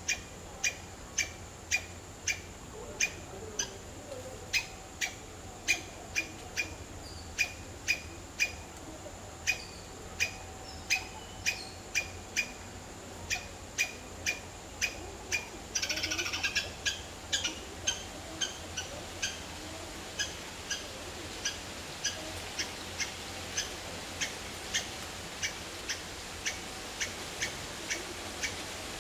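A bird repeating a short, sharp, high call note about one and a half times a second. About halfway through there is a brief burst of quicker twittering, and the notes then carry on a little fainter.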